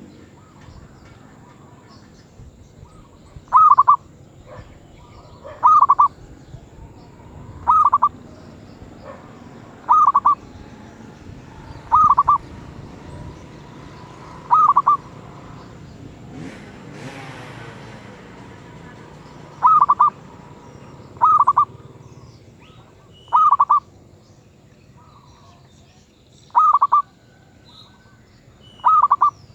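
Zebra dove (merbuk) with a medium-pitched voice calling: a short burst of quick cooing notes about every two seconds, eleven times, with a longer pause midway in which a brief noise sounds.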